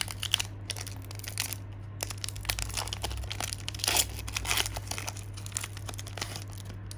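Foil booster-pack wrapper being torn open and crinkled by hand, an irregular run of crackles and rips.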